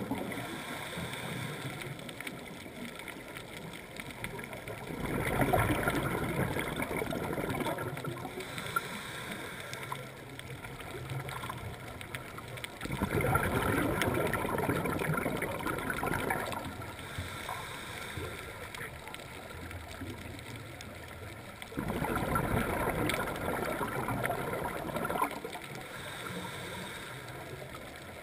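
Scuba diver's exhaled bubbles from the regulator gurgling, heard underwater in three bursts of about three seconds each, roughly every eight to nine seconds, with a quieter hiss between them.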